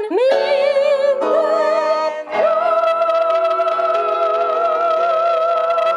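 Women's voices singing a show tune together with keyboard accompaniment over a stage PA. About two and a half seconds in they settle on one long held note with vibrato.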